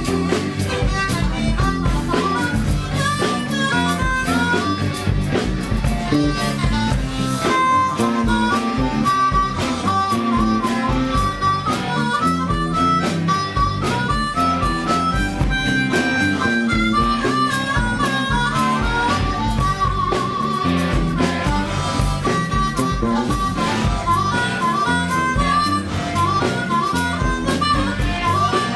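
Blues harmonica (blues harp) played hard into a cupped handheld microphone, running through quick stepped phrases as a solo over strummed acoustic guitar, electric bass and a drum kit.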